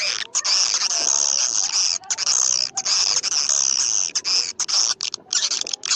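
Swiftlet lure call: dense, high-pitched twittering and chirping of swiftlets in long runs, broken by short pauses, as played from a swiftlet-house call recording.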